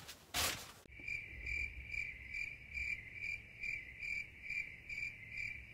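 Cricket chirping in an even rhythm, about two chirps a second, starting abruptly about a second in after a brief rush of noise.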